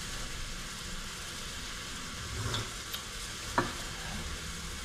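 Steady hiss from an empty iron wok heating on a gas burner, with a single light knock about three and a half seconds in.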